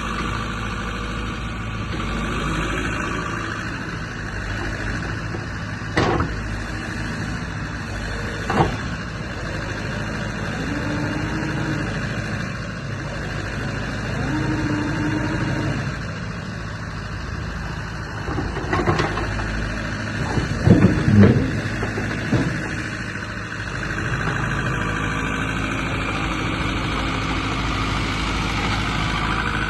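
JCB 86C-1 midi excavator running steadily, its engine note rising and falling under load at times. Sharp metallic knocks come twice early on, and a louder run of clanks comes about twenty seconds in.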